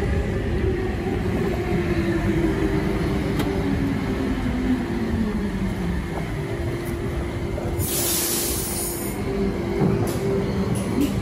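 Passenger train running at a station, with a machine whine that falls slowly in pitch over several seconds. A short burst of hiss comes about eight seconds in.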